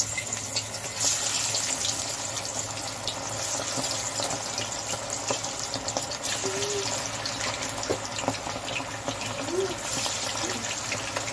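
Marinated chicken pieces deep-frying in hot oil: a steady sizzle with many small crackles, as more pieces are dropped in one by one.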